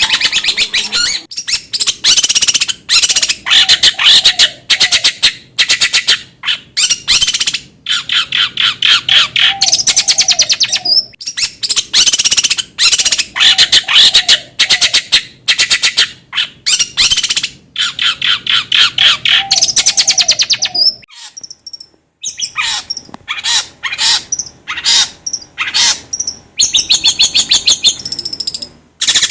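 Long-tailed shrike (cendet) song: loud runs of very rapid chattering notes in phrases a second or two long, separated by short gaps, with a brief full pause about three-quarters of the way through.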